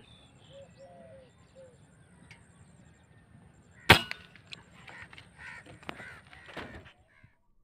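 A single sharp airgun shot about four seconds in that hits a collared dove perched on a wire. Birds call faintly before the shot and several times after it.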